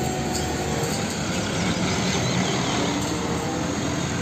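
Hino tank truck driving along a road: its diesel engine running steadily over an even wash of road noise.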